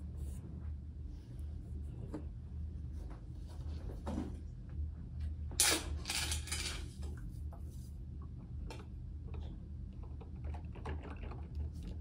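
Ninja drip coffee maker in the first seconds of a brew cycle: irregular small clicks and crackles as the machine heats the water, with a louder hissing burst about six seconds in, over a low steady hum.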